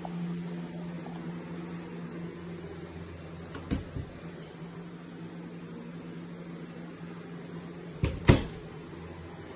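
Interior door handled: the knob and latch click twice about four seconds in, then the door is pushed shut with two knocks near the end, the second the loudest. A steady low hum runs underneath.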